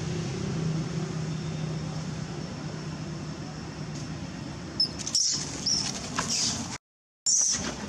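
Baby macaque giving short, very high-pitched squeals in quick succession from about five seconds in, as an adult grabs it, with a brief cut-out of all sound shortly before the end. Before the squeals, a steady low engine-like hum.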